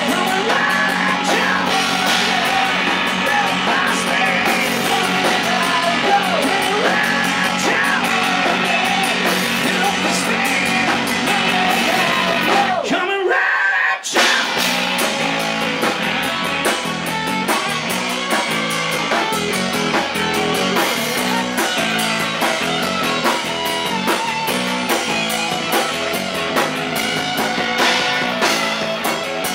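A live hard rock band playing loud distorted electric guitars and drums, heard from on stage through the amps and monitors rather than the mixed PA. A little before halfway the sound briefly drops out, then the band comes back in.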